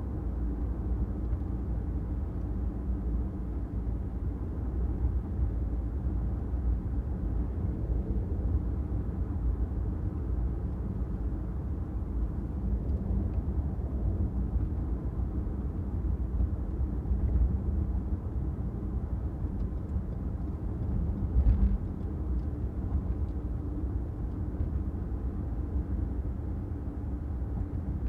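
Steady low rumble of a car driving on city streets: road and engine noise. A single short thump comes about three quarters of the way through.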